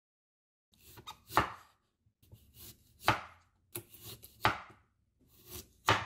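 Knife slicing peeled fresh ginger root on a wooden cutting board: four cuts about a second and a half apart, each a short scrape through the root ending in a knock of the blade on the board.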